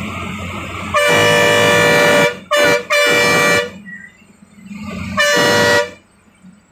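Bus horn honked four times: one long blast, a very short toot, then two shorter blasts, each a steady two-note tone, loud from inside the bus. A low engine and road rumble runs underneath, typical of a bus sounding its horn on a mountain hairpin bend.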